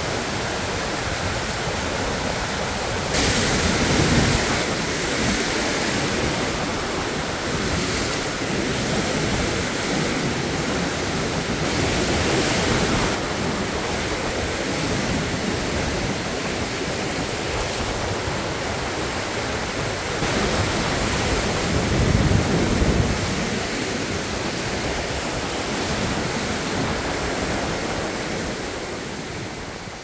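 Waterfall cascading over layered rock ledges into rough Lake Erie shore water with waves breaking, a steady rush of water with a few louder surges. It fades out near the end.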